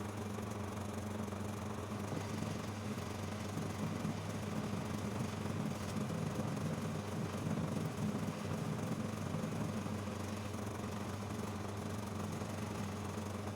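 Electric motor of a homemade metal lathe running steadily, driving the spindle through its belt and pulleys, with an even low hum.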